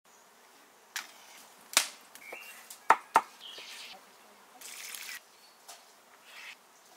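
A few sharp knocks of charcoal lumps dropped into a metal barbecue box, then short hissing bursts of water running over basil leaves in a colander.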